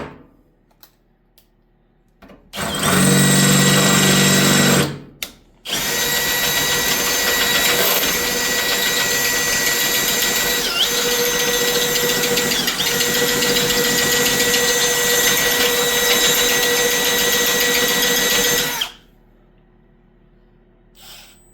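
Electric drill running, with a bit that is not cutting: a short run of about two seconds, then a long steady run of about thirteen seconds that stops suddenly.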